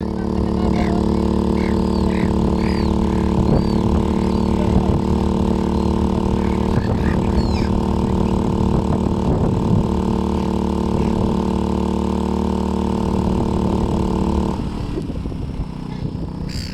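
Steady engine hum at an unchanging pitch that cuts off abruptly about fourteen and a half seconds in. Short high chirping calls sound over it during the first several seconds.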